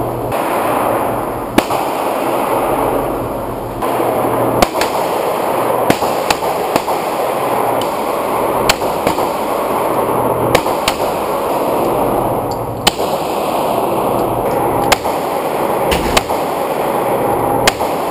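Handgun shots in an indoor range, about a dozen single sharp reports unevenly spaced a second or more apart, each with a short echo, over a steady background noise.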